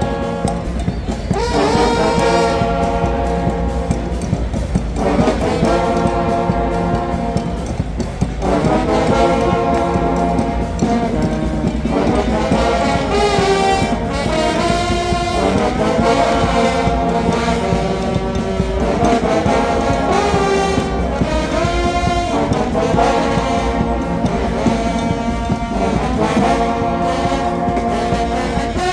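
Mummers band playing a tune outdoors on horns, held chords in phrases of a few seconds over a steady low accompaniment.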